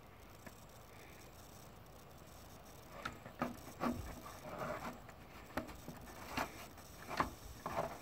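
Irregular soft taps and rustles, starting about three seconds in, from a gloved hand shifting its grip on a handheld clamp meter.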